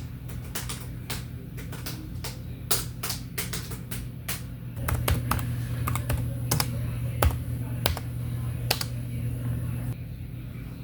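Computer keyboard keys clicking in irregular keystrokes, a few a second. A low steady hum comes in about five seconds in and stops near ten seconds.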